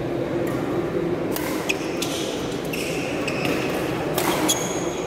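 Badminton rally: several sharp clicks of rackets striking the shuttlecock, with brief squeaks of shoes on the court mat over a steady murmur of spectators in a large hall.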